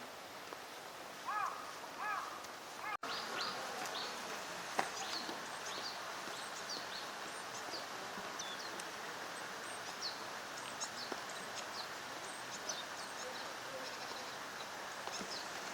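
Northern pintail ducks calling on a pond: two short whistled calls about a second in. After a break, a continuous scatter of many brief, high chirps over steady outdoor background noise.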